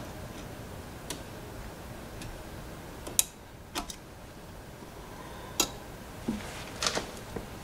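Scattered light clicks and taps of small metal parts as the float of a Tecumseh carburetor and a small tool are handled during a float-height adjustment, the sharpest a little past three seconds in.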